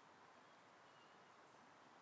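Near silence: faint steady background hiss, with one very faint short high chirp about halfway through.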